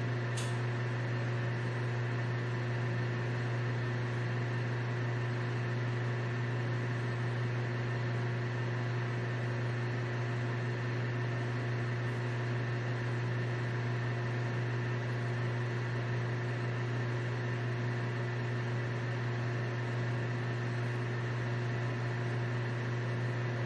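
Transparent-door display refrigerator running: a steady, unchanging machine hum with a strong low drone and fainter steady tones above it.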